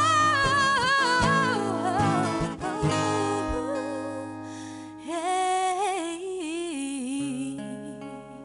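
A woman singing with two acoustic guitars: a sung phrase with vibrato over strummed and picked chords, the guitars ringing alone for a moment, then a second sung phrase about five seconds in. Near the end a chord rings out and fades.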